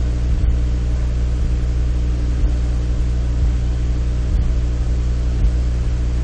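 Steady low electrical hum with a stack of even overtones, unchanging throughout, with a few faint low knocks.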